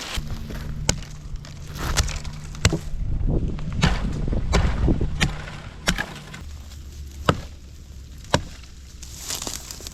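Wood being chopped by hand: about nine sharp, irregularly spaced strikes of a blade biting into wood.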